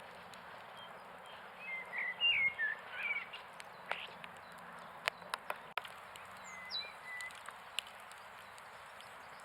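Outdoor ambience with a bird chirping in two short runs of quick rising and falling calls, about two seconds in and again near seven seconds, over a steady background hiss and scattered faint clicks.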